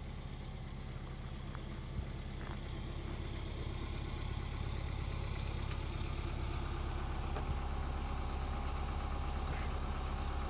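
Vehicle engine running steadily at low speed, a low even hum that grows slightly louder.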